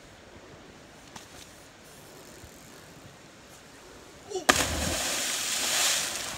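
A person jumping off a rope swing into a deep river pool: about four and a half seconds in, a sharp slap as the body hits the water, followed by about a second and a half of splashing spray that fades.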